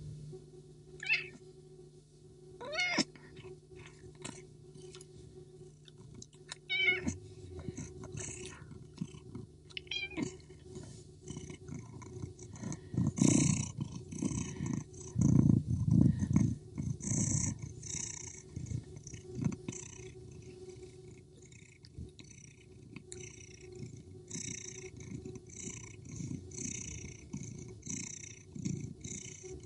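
Two cats in a standoff, a white Persian and a tabby street cat, yowling. Several drawn-out wavering yowls come in the first ten seconds, followed by a long stretch of low rumbling growls broken by sharp short bursts.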